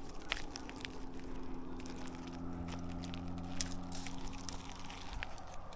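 Hands and bare feet gripping and scraping rough tree bark while climbing a trunk, giving scattered light crackles and scrapes. A steady low hum runs underneath from about half a second in and fades out about a second before the end.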